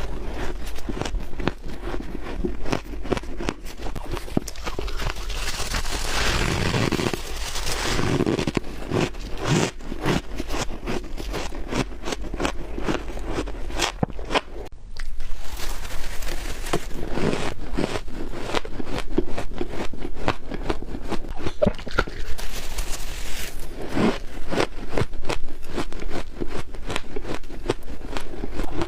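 Close-up bites and chewing of soft freezer frost and flavoured ice: dense, irregular crunching and crackling with squeaky compacting, with a short lull around halfway.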